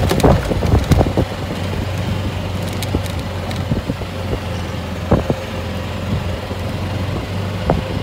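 Golf cart driving over the fairway: a steady running hum, with knocks and rattles from the cart jolting over the ground, several in the first second and a couple more later.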